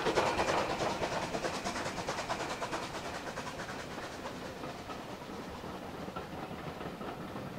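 Bulleid Battle of Britain class pacific 34053, a rebuilt three-cylinder steam locomotive, passing with rapid exhaust beats that fade over the first few seconds. It is followed by the steady rolling rumble and wheel clicks of its coaches going by.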